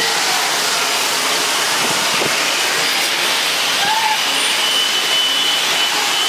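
Jet engines of an airliner running with a steady, loud roar.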